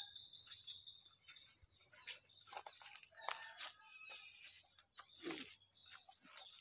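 A steady, high-pitched drone of insects, typical of crickets or cicadas, with faint scattered ticks, chirps and rustles over it.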